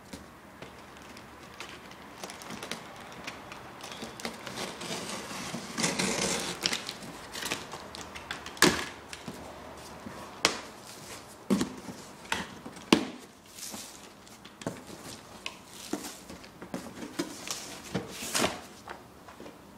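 Utility knife slitting packing tape along a cardboard box, with scraping and ripping and many sharp clicks and knocks, then the cardboard flaps being pulled open near the end.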